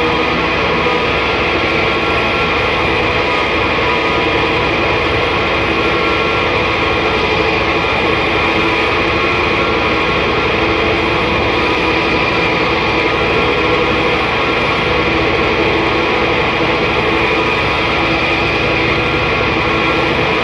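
Noise music: a dense, unbroken wall of distorted drone with a few sustained tones held through it, loud and steady with no beat.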